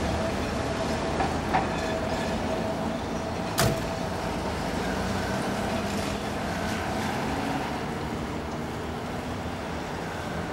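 Street traffic with a minibus engine running at the kerb and a steady rumble throughout, broken by a sharp bang about three and a half seconds in.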